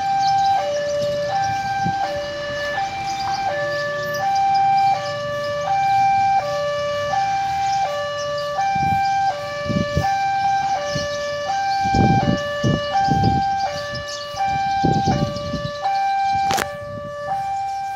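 Railway level-crossing warning alarm sounding two alternating electronic tones, a higher and a lower, each held about half a second and repeating steadily, the signal that a train is at the crossing.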